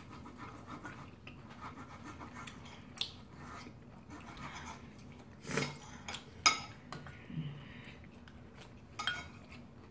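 Knife and fork scraping and clinking on a ceramic plate as a steak is cut, with a spoon clinking against a ceramic soup bowl. A few sharp clinks stand out, the loudest about six and a half seconds in.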